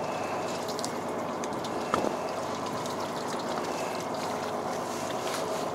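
A fishing boat's engine running steadily, with scattered small clicks and one sharp knock about two seconds in.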